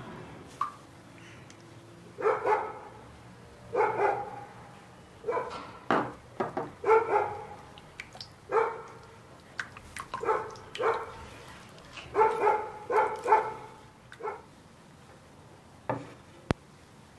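A dog barking repeatedly in short sharp barks, about a dozen of them starting about two seconds in, some in quick pairs, with a few light clicks in between.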